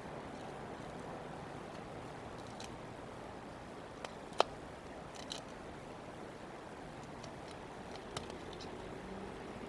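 Bald eagles handling sticks and food in their nest: a few sharp clicks and snaps over a steady background hiss, the loudest about four and a half seconds in. A steady low engine drone comes in near the end.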